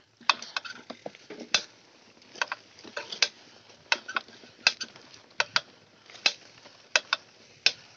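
Mountain bike's bottom bracket clicking while riding: sharp, irregular clicks, roughly one or two a second, the sound of a noisy bottom bracket.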